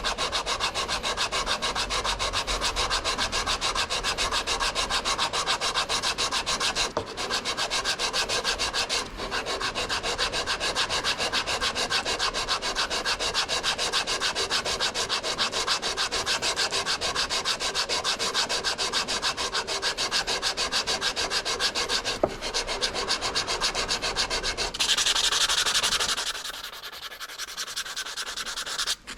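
Fast, even scrubbing strokes of abrasive cleaning on the metal parts of a car's front disc brake, with short breaks about 7 and 9 seconds in. Near the end the scrubbing gives way to a brief louder hiss, then a quieter stretch.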